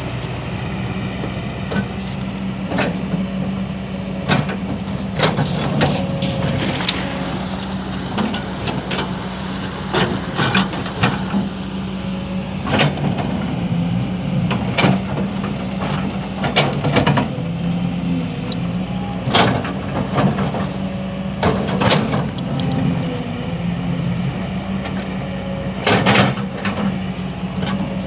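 Hydraulic excavator's diesel engine running steadily under working load, with irregular sharp knocks and clanks every second or two.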